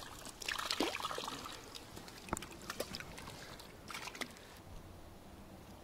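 Faint river water trickling and lapping at the bank, with scattered small clicks and ticks.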